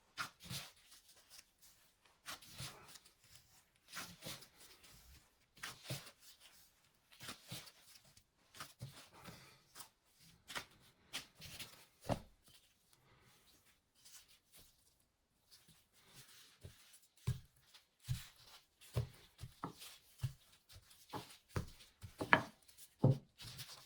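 Food preparation on a kitchen work surface: irregular soft knocks, taps and rustles, roughly one every second or two. The knocks become more frequent, with a few duller thuds, in the last few seconds.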